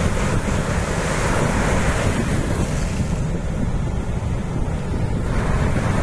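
Ocean surf breaking and washing over the shore, with wind buffeting the microphone. The hiss of the surf eases about halfway through and swells again near the end.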